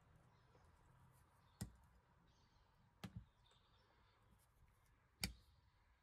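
Near silence broken by three sharp clicks, the second one doubled and the last the loudest, from small parts being handled at a workbench.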